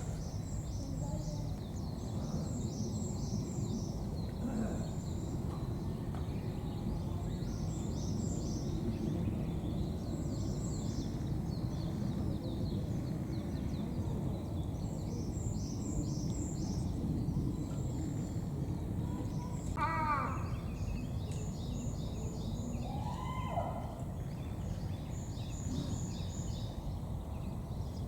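Steady outdoor background noise with small birds chirping throughout, and a louder bird call with a falling pitch about two-thirds of the way through, followed shortly by another shorter call.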